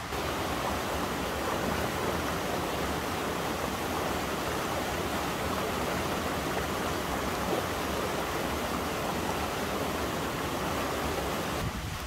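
Mountain stream and small waterfall cascading over boulders: a steady rush of water that cuts off just before the end.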